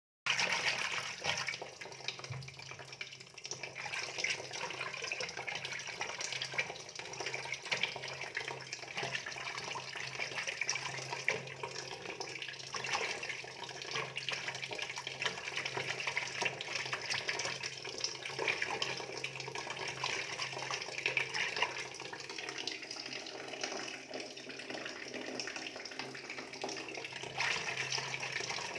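Water splashing and trickling steadily as goldfish are handled in water, with a faint steady low hum underneath.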